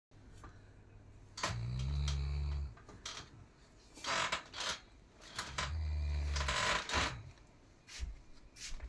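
A person snoring: two low snores about four seconds apart, each lasting about a second, with a noisy breath between them.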